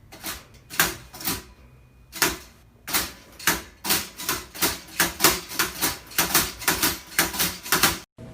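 A series of sharp taps or smacks that gets faster, from about two a second to about four or five a second, then cuts off abruptly near the end.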